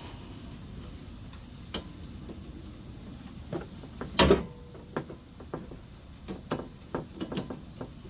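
Hand tools clicking and clanking on the sway bar link and its nut, with one louder metal clank about four seconds in and a run of irregular clicks after it.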